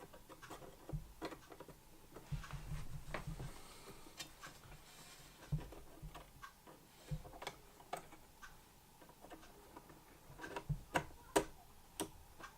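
Scattered small clicks and taps of RAM modules being handled and pushed into an iMac's memory slots, with a few sharper clicks near the end.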